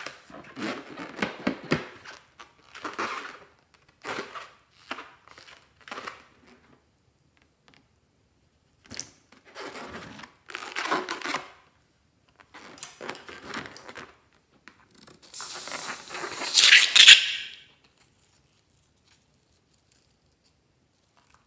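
Rubber balloons being handled and cut open: irregular bursts of rustling, crinkling and tearing, the loudest about 16 to 17 seconds in, then quiet.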